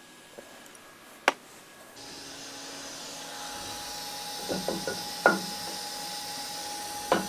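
A sharp metallic click, then the steady hum of the CNC mill in the background, with a cluster of short metal clunks and one more near the end as a heavy cast iron fixture plate is set in the vise and shifted against the fixture stop.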